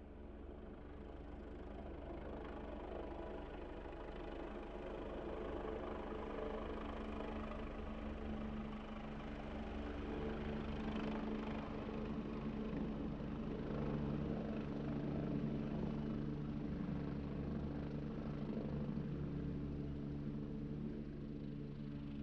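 Helicopter coming in to land: a steady drone of rotor and engine with a stack of low tones, growing louder over the first dozen seconds or so and then holding steady.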